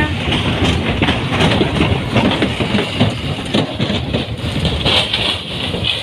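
Traffic crossing the metal deck plates of a temporary bridge: an irregular clatter of knocks and rattles over a low engine rumble.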